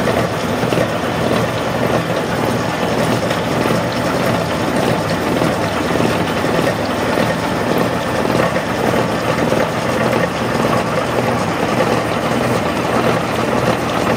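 Gear hobbing machine cutting teeth into a stack of sprockets, its hob working through the blanks under a stream of cutting oil. It makes a loud, steady mechanical whir with a constant low hum underneath.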